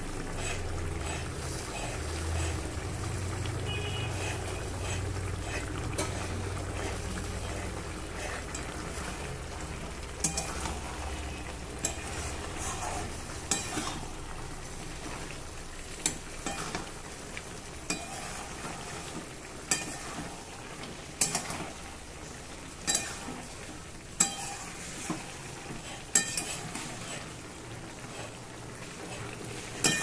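A wooden spatula stirring a curry simmering in a nonstick pan, knocking and scraping against the pan about once every second or so from about ten seconds in, over the steady sizzle of the bubbling gravy. A low rumble sounds during the first several seconds.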